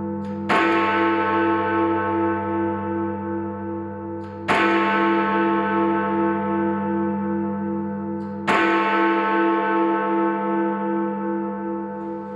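Big Ben, the Great Bell at Westminster, striking the hour: three identical strokes about four seconds apart. Each stroke rings on in a long, slowly fading hum with a pulsing waver.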